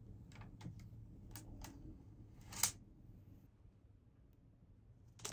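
Clear plastic handled by hand: a few light plastic clicks and crinkles, the sharpest about two and a half seconds in, then a quiet stretch before a quick run of crinkly clicks near the end.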